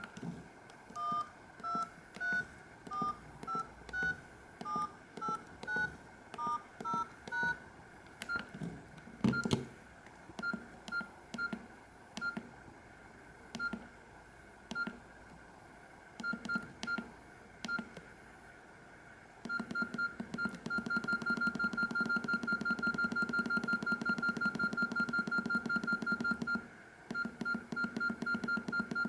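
Nokia E66 mobile phone playing its built-in beep ringtones through its loudspeaker: first a short melody of high electronic beeps at changing pitches, then patterns of same-pitch beeps, from scattered single pips to a fast run of about five beeps a second, with a brief pause before it resumes near the end. A soft knock sounds about nine seconds in.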